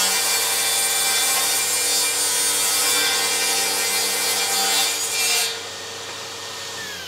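DeWalt FlexVolt cordless table saw ripping a 10-degree bevel along a wooden trim board, its blade cutting with a steady loud whine. About five and a half seconds in the blade clears the wood and runs free more quietly. Near the end it is switched off and its pitch starts falling as it spins down.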